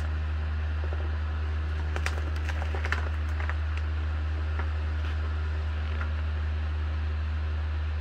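Steady low machine hum, unchanging throughout, with a few faint clicks and rustles about two to three and a half seconds in.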